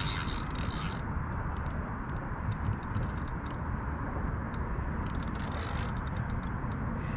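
Spinning reel under load from a hooked stingray: its handle cranked in short spells, with clicking from the gears and drag. There is a scratchy burst in the first second and a run of clicks around five to six seconds in, over a steady low rumble.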